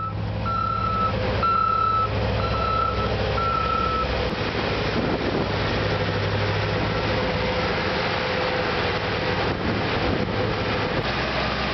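Large mining dump truck's reversing alarm beeping at an even pace, a little under one beep a second, stopping about four seconds in. The truck's diesel engine runs steadily underneath throughout.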